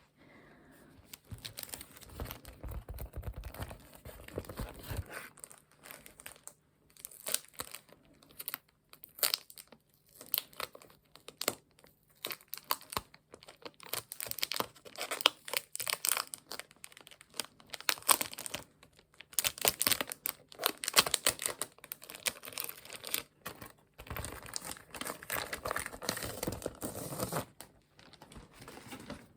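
Close-miked crinkling, peeling and tearing sounds in irregular bursts with short pauses between them, the sticky sounds of tape or stickers being handled for ASMR.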